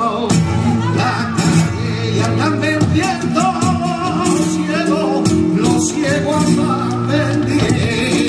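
Live flamenco: a flamenco guitar playing, with palmas (rhythmic hand-clapping) and the dancer's footwork striking the stage in sharp repeated hits.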